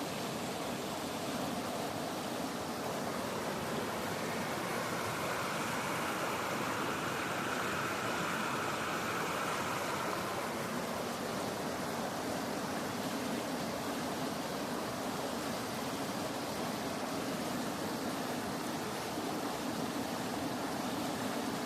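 Small river's water rushing steadily, an even hiss with no distinct strokes.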